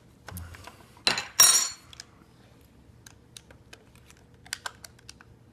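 Small plastic clicks and ticks of a thin tool prying at an Xbox controller's button, with one louder scraping burst about a second in.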